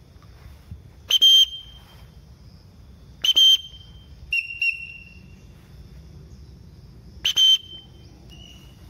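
Several short, shrill whistle blasts a second or two apart, each with a sharp hissy onset and a clear high tone. They are a recall signal to a free-flying Alexandrine parakeet.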